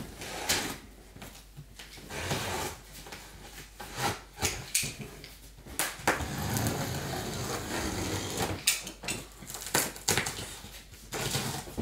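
Box cutter slicing the packing tape along the top of a large cardboard box: irregular scrapes, knocks and cardboard rustling, with a longer stretch of steady scraping about halfway through.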